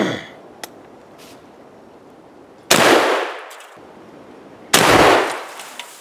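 Two 12-gauge shotgun blasts from a 1964 Sears Model 200, about two seconds apart, each trailing off in an echo. Each shot sets a can of starting fluid alight.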